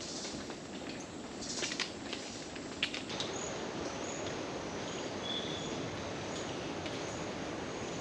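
Rainforest ambience: a steady hiss with a few footsteps on the boardwalk in the first three seconds, then a bird's faint high call repeating evenly to the end.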